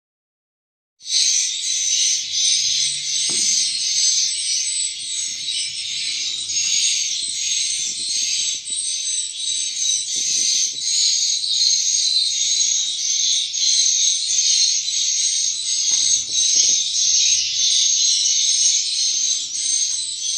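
Dense, continuous high-pitched twittering of swiftlets, many rapid chirps overlapping, starting abruptly about a second in. A few faint low knocks sound underneath.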